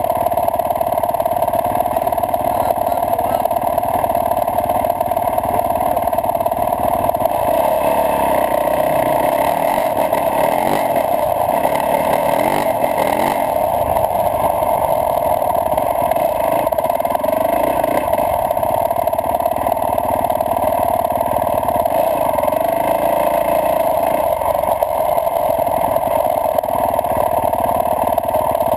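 Yamaha YZ450F dirt bike's four-stroke single-cylinder engine running steadily under way, heard through a GoPro camera, its pitch rising and falling as the throttle is worked around the middle.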